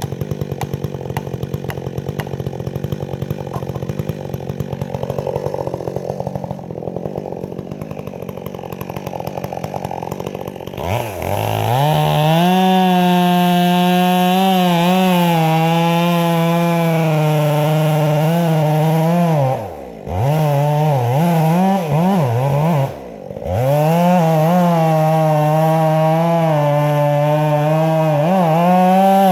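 Stihl MS 400 C two-stroke chainsaw with a 20-inch bar, idling, then about 11 seconds in revved to full throttle and held there cutting pine, its pitch wavering with the load. Twice, about two-thirds of the way through, the throttle drops off briefly before the saw is back at full speed.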